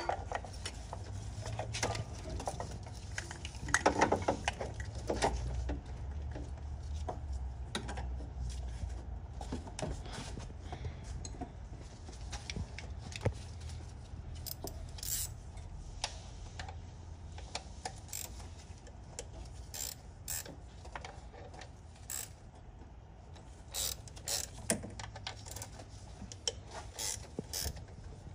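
Socket ratchet clicking in short runs as 10 mm bolts on the engine top are worked loose, with light knocks of the tool and metal parts.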